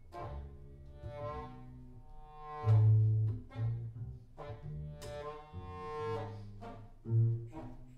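Modern jazz played live by a quartet of double bass, electric guitar, accordion and saxophone, with the double bass prominent in deep low notes and several sharp, loud note attacks over them.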